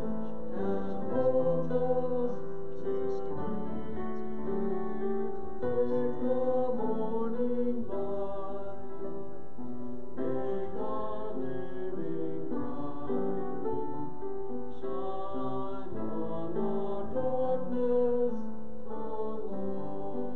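Slow hymn music with long held notes and a melody over them, played on a keyboard.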